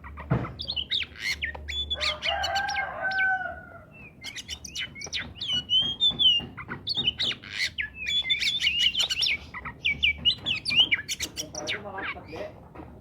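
Oriental magpie-robin singing in full, nonstop song: rapid, varied whistles, chirps and quick rising and falling notes, with a short lull about four seconds in. A lower, drawn-out two-toned call sounds beneath the song around two to three seconds in.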